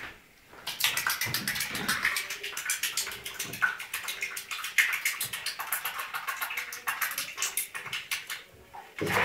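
Bathwater splashing in a baby bath as hands move through it, a quick run of small, irregular splashes starting just under a second in.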